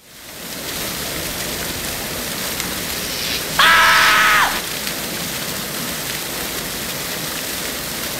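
Water spraying hard and steadily as a cartoon sound effect, fading in at the start. About three and a half seconds in, a loud electric buzz lasts about a second: the sound of an electrocution.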